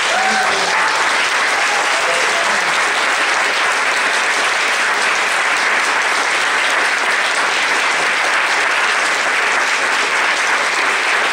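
Audience applauding steadily and loudly, with a few voices calling out over the clapping in the first couple of seconds.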